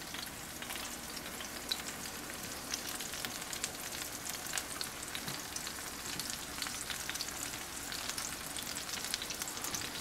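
Thick ribeye steak searing in oil in a very hot cast iron skillet: a steady sizzle with frequent small pops and crackles. Cubes of butter are added and start to melt and fry in the fat.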